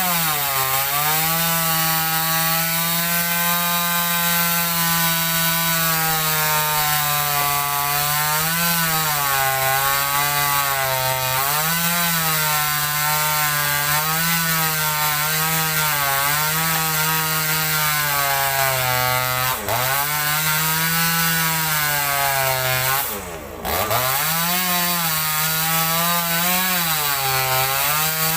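Chainsaw running at high revs, cutting into mango tree wood, its engine pitch wavering up and down as the chain bites. About two-thirds of the way in the engine dips sharply twice and picks back up.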